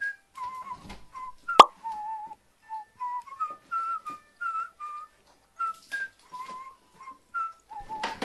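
A whistled tune of short, slightly wavering notes in a middle-high register. About a second and a half in there is one sharp click, the loudest sound, and near the end a brief clatter.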